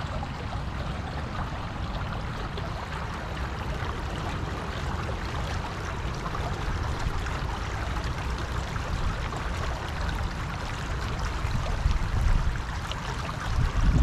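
Shallow, fast-running river rushing and rippling over its bed in a steady, even wash of water noise. A low wind rumble on the microphone sits underneath and swells briefly near the end.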